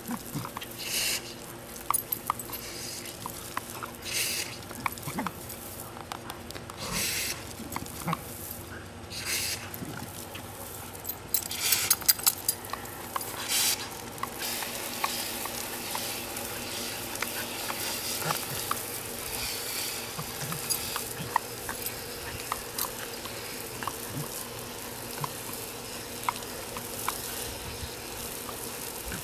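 Garden hose spraying water, hissing and pattering onto gravel. It comes in short separate bursts through the first half, then settles into a steadier spray.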